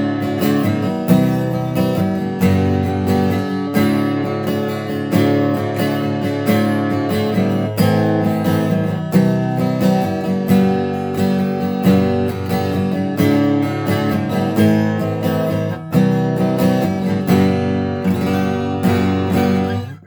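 Epiphone Inspired by Gibson Hummingbird acoustic guitar, with solid rosewood back and sides and a thermally aged Sitka spruce top, strummed through a chord progression in a steady rhythm. The playing breaks off at the very end.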